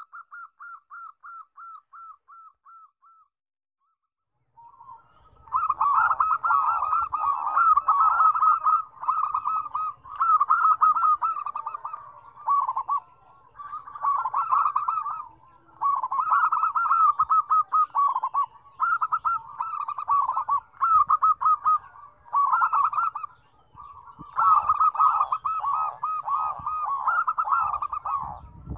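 A short run of about ten quick falling notes, then near silence. From about five seconds in, several zebra doves (perkutut) coo together, their rapid staccato notes overlapping in bouts of a second or two with short pauses between.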